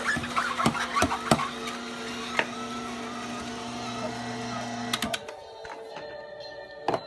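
Omega masticating juicer's motor running with a steady low hum while wheatgrass is pushed into the auger, with a few sharp crackles in the first seconds; the hum stops about five seconds in.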